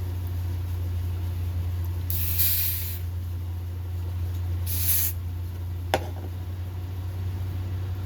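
Hairspray sprayed in two bursts, a longer hiss of about a second followed by a shorter one, then a single sharp click.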